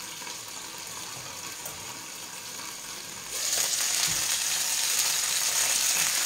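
Tuna steaks searing in a frying pan, a steady sizzle that jumps much louder about three seconds in as the pan's lid is lifted off.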